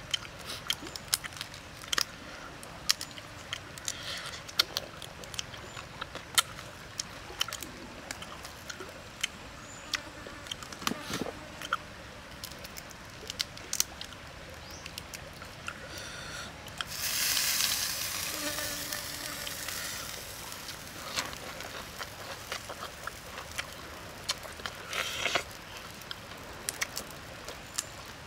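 Grilled shrimp shells crackling and clicking as they are peeled apart by hand, a run of many small sharp clicks, with a louder stretch of crackly noise about seventeen seconds in that lasts about three seconds.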